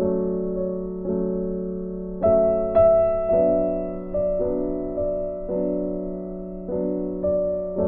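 Background music: slow, gentle piano, notes and chords struck about once a second and dying away.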